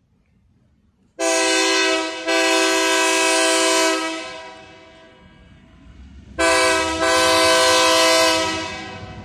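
Diesel locomotive air horn sounding twice, a few seconds apart. Each sounding is a short blast followed almost at once by a longer one. Beneath the second, the low rumble of the approaching locomotive grows.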